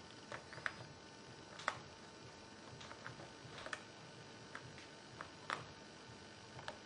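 A long-haired guinea pig gnawing at a lump of hard food, giving about ten faint, sharp clicks at irregular intervals.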